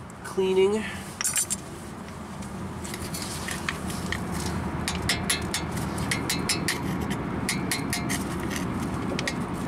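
Hammer tapping a cold chisel against the cast steering knuckle, sharp metallic clinks that start about three seconds in and come faster toward the end. The chisel is clearing rust scale from the ABS wheel-speed-sensor bore so the sensor can sit flush.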